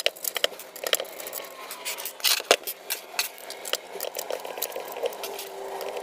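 Hands removing and handling small screws and parts on the metal frame of a laser engraver: a run of scattered small clicks and taps.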